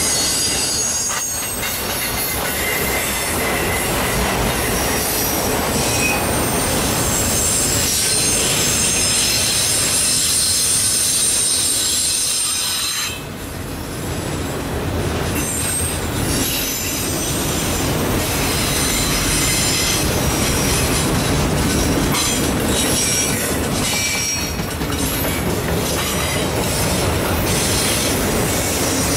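Freight train of autorack cars rolling past close by: a steady rumble of steel wheels on rail, with high-pitched wheel squeal that comes and goes.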